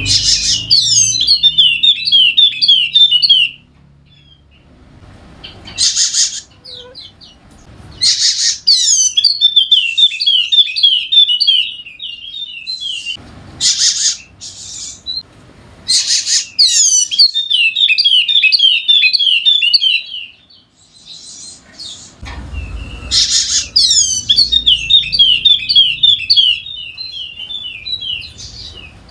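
Yellow-spectacled (Wallacean) white-eye singing its full, vigorous song: bouts of fast, high twittering phrases a few seconds long, about four of them, with short pauses between.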